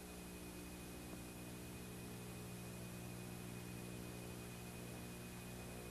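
Faint, steady electrical mains hum with hiss and a thin high whine, the background noise of the recording itself.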